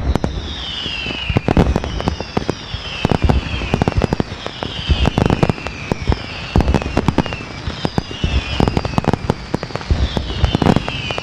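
Fireworks going off in a dense run of sharp cracks and pops, with a high whistle falling in pitch about every second and a half.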